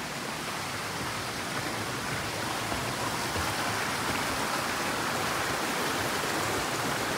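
Rushing mountain brook flowing over rocks below a wooden footbridge: a steady water rush that grows a little louder as the bridge is crossed.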